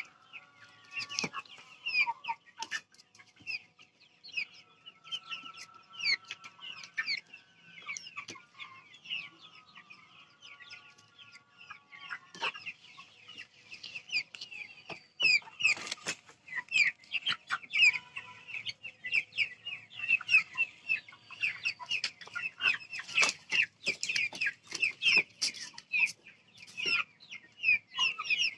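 A flock of Vanaraja chickens clucking and cheeping continuously, many short calls overlapping, busier and louder in the second half, with scattered sharp clicks.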